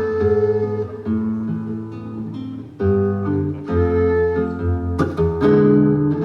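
Andean instrumental music: acoustic guitar accompaniment over a steady bass line, in a passage between phrases of the quena flute.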